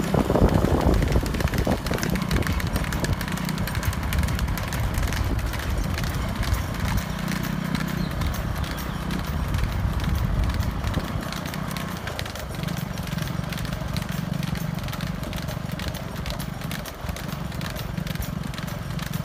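Hooves of a pair of trotting bullocks clattering rapidly on asphalt as they pull a light two-wheeled cart, over a steady low rumble from the vehicle carrying the camera.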